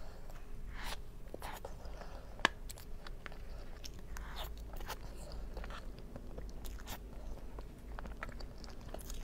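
Close-miked eating of soft cream cake: wet chewing and mouth sounds with many scattered sharp clicks, the sharpest about two and a half seconds in.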